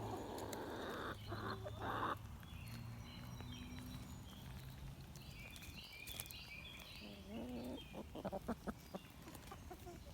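Chickens clucking and giving short high calls while they peck at soaked feed pellets, with a cluster of quick taps and low clucks near the end.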